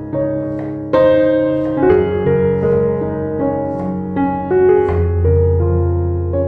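Background piano music: slow, gentle piano notes and chords.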